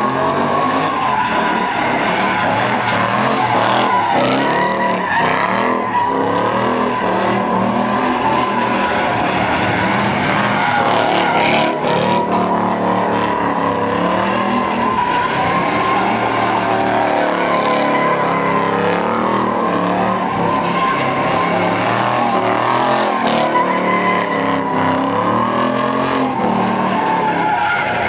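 A car doing donuts: continuous tire squeal from the spinning, sliding tires over the engine revving up and down.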